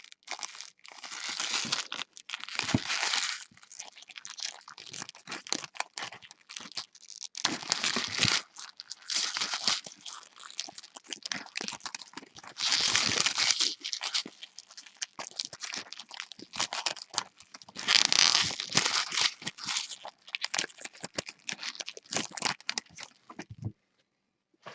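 Baseball card pack wrappers being torn open and crinkled by hand, in irregular bursts of crackling and rustling with a few louder tears.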